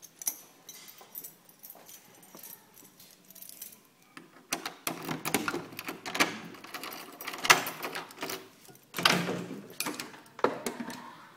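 A bunch of keys jangling, then metallic clicks and rattles as a key is worked in a door lock, with the clatter thickest in the second half.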